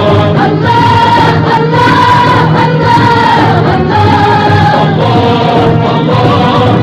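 A chorus of voices singing a song together over instrumental music with a steady low beat.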